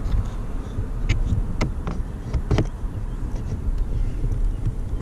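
A few light clicks and taps of carbon fiber trim pieces being pressed into place in a car interior, over a steady low rumble.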